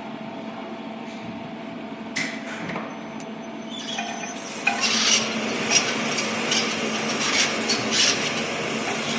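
LEO elevator drive unit humming steadily. About two seconds in there is a sharp click, then from about four seconds a louder scraping, rubbing noise with repeated knocks about twice a second. This is the strange noise the unit is making.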